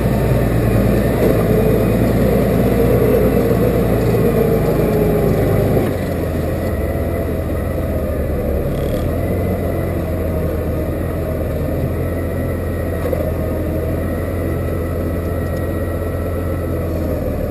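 Case 5130 tractor's diesel engine running steadily under load. The engine note drops slightly about six seconds in, then holds steady.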